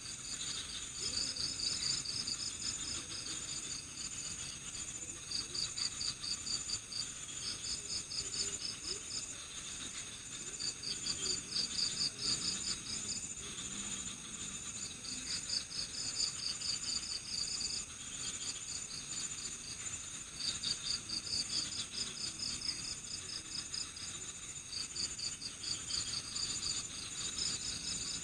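Night chorus of crickets: trains of rapid, high-pitched chirps in bouts of one to two seconds, repeating every few seconds, over a continuous higher-pitched insect trill.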